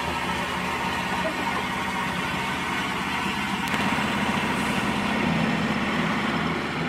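Portable bandsaw mill's gas engine running under load as the band blade saws lengthwise through a beech log. The sound gets a little louder about four seconds in.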